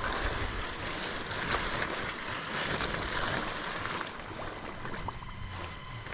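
Mountain bike rolling along a wet, muddy, grassy trail: the tyres swish through grass and mud under a steady rushing noise, with wind buffeting the microphone as an uneven low rumble. It gets a little quieter about four seconds in, with a few faint ticks from the bike.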